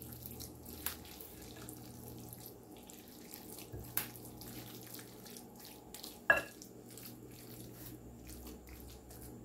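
Wooden spoon stirring wet chicken pot pie filling in a glass pie dish: soft squelching with scattered taps of the spoon on the glass. The loudest is a sharp knock with a short ring a little past the middle. A faint steady hum runs underneath.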